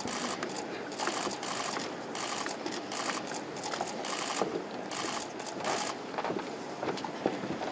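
Camera shutters clicking in rapid bursts, one burst after another, over a steady background hubbub.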